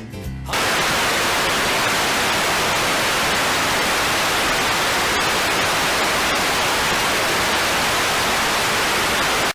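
Loud, even television static hiss that cuts in sharply about half a second in, after a brief snatch of a children's song, then stops abruptly.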